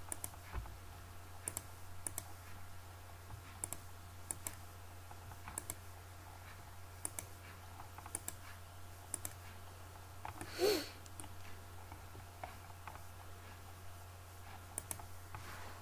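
Computer mouse button clicking, often a quick press-and-release pair, every second or two while segments are picked off with the trim command, over a steady low hum. About ten and a half seconds in, a brief louder voice-like sound stands out.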